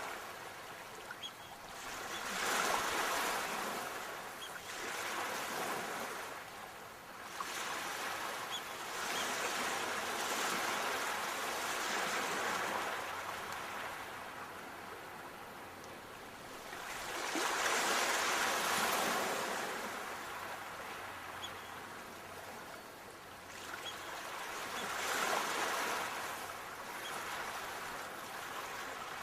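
Sea waves breaking on a shore, a steady wash of surf that swells into a louder surge every six to eight seconds.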